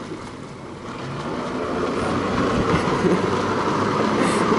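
Jet ski engine powering a flyboard, running with a steady hum that grows steadily louder as the throttle is opened.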